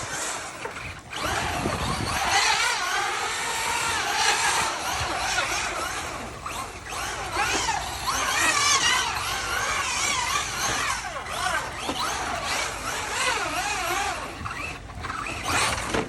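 Electric motor of a two-wheel-drive Traxxas Slash RC truck whining as it is driven on wet, slippery ground, its pitch rising and falling over and over with the throttle.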